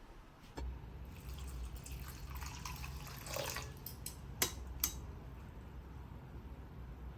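Water running and trickling for a few seconds, then two sharp clicks about four and a half seconds in.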